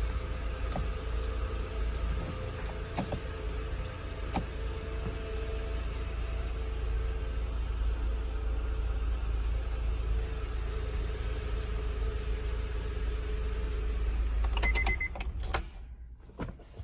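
Honda car's engine idling steadily, heard from inside the cabin. About fifteen seconds in it is switched off: the rumble dies away with a few clicks and a short beep.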